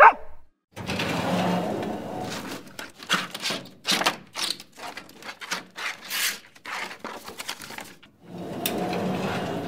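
A rushing, scraping noise, then several seconds of quick, irregular clicks and knocks, then more scraping noise near the end.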